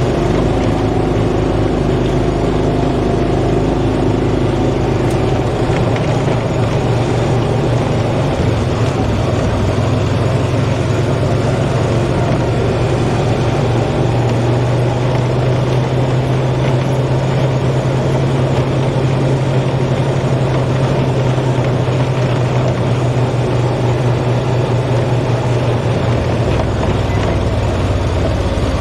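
Heavy engine of farm harvest machinery running steadily. Its low hum grows stronger about halfway through.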